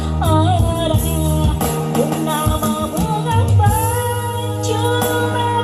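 Music: a ballad backing track with a lead melody that slides and wavers over sustained bass notes.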